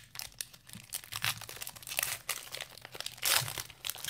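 Foil wrapper of a Court Kings basketball card pack being torn open and crinkled by hand, a string of short sharp rustles, loudest a little over three seconds in.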